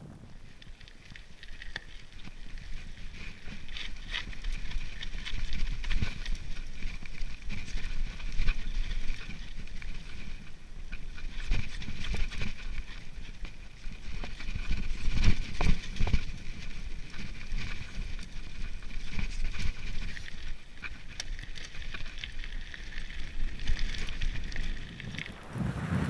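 Bulls Copperhead 3 mountain bike rattling and clattering as it rolls downhill over rough gravel and grass, with frequent knocks from bumps in the trail.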